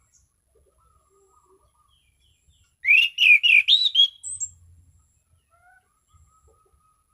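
Anis cendana thrush singing: soft faint notes, then about three seconds in a loud, quick phrase of about five slurred whistled notes, followed by a brief high note and more faint soft notes.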